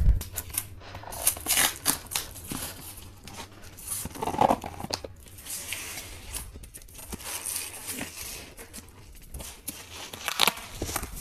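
A cardboard mail parcel being torn open by hand: packing tape peeled and cardboard ripped in irregular rips and scrapes, with crinkling of the plastic wrap inside near the end.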